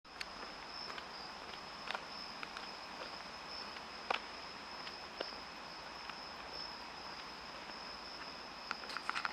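Insects trilling: one steady, unbroken high-pitched note, with a few faint ticks and taps that come more often near the end.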